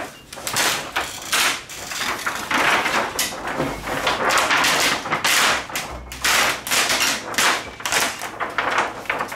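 Thin plastic reflector sheet of a TV's LED backlight crinkling and rustling as it is peeled up and lifted off the LED strips, in irregular crackling bursts.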